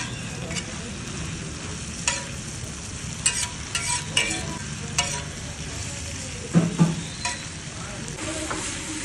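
Steel spatula scraping and clanking irregularly against a large flat iron tawa as sliced onions and capsicum are stirred and spread, over a steady sizzle of frying.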